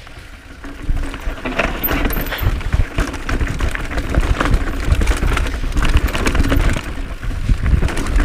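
Cannondale Claymore full-suspension mountain bike rattling down a rocky, rooty trail: tyres, chain and frame give a dense run of irregular knocks and clatter over a steady low rumble of wind on the microphone.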